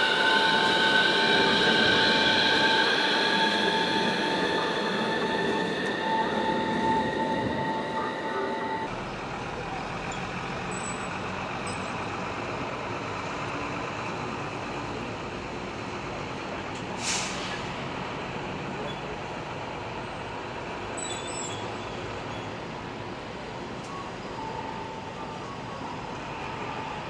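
Fukui Railway F1000-series low-floor tram running past, its electric traction motors giving a steady tone and a whine that rises slowly in pitch as it gathers speed. About nine seconds in this gives way abruptly to a quieter, even city hum, with a short hiss partway through.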